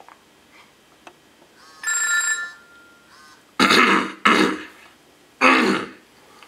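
A phone ringing with a short electronic tone about two seconds in, followed by three loud, short noisy bursts.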